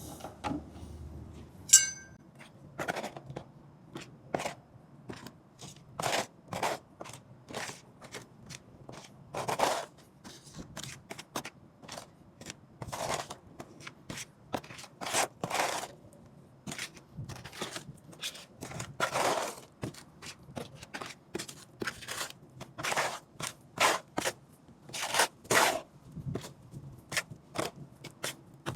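Wet quick-setting cement being stirred and scraped in a mixing pan, an irregular run of short gritty scrapes and slaps, with a single sharp clink just under two seconds in.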